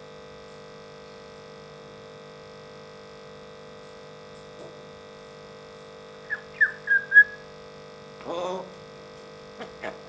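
African grey parrot giving four short, quick whistled chirps about six seconds in, then a brief voice-like call a second later, over a steady electrical hum.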